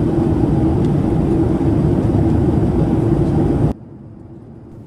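Boeing 787-9 cabin noise in flight: a loud, steady rush of air and engine noise with a low hum. It stops abruptly at a cut a little under four seconds in, giving way to a much quieter, steady cabin hum.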